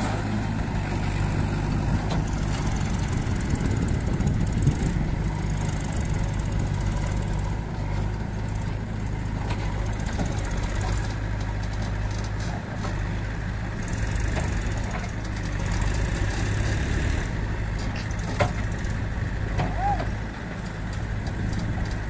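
Diesel engines of a farm tractor and a JCB 3DX backhoe loader running steadily at a constant low pitch while the backhoe digs. There is one sharp knock about eighteen seconds in.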